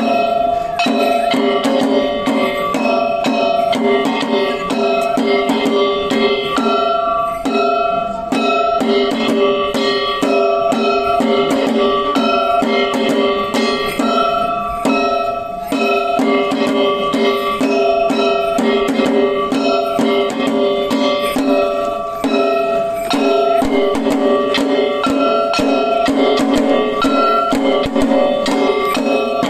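Kagawa shishimai (lion dance) accompaniment: drums and other struck percussion beating a fast, steady rhythm, over sustained ringing pitched tones that shift now and then.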